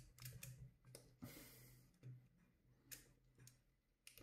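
Faint plastic clicks and a short scrape about a second in, as the polymer shell, spring guide and spring of an airsoft AR midcap magazine are handled and slid together, over a low steady hum.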